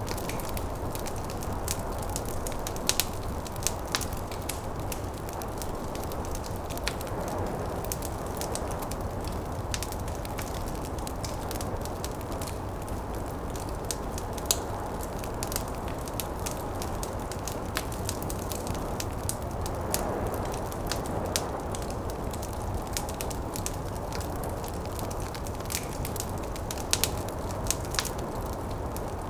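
Wood fire crackling with many irregular sharp pops, over a steady low rush of snowstorm wind.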